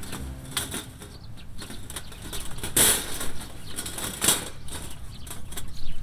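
Thin aluminium folding windscreen panels rattling and clattering as they are handled and stood upright around a fire pit, with two louder clatters near the middle.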